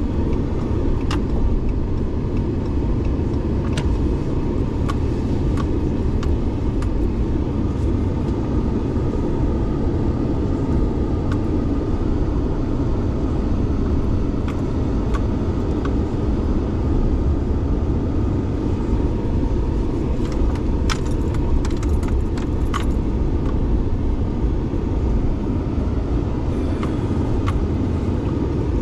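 Truck cabin noise as the truck rolls slowly in a driveway: a steady low rumble with scattered light clicks and jingling, several of them close together about three-quarters of the way through.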